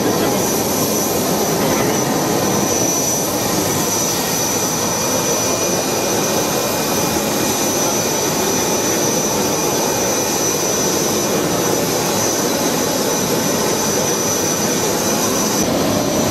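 Turbines of a parked twin-engine business jet running steadily: a loud, even rush of noise with a thin high whine held through it.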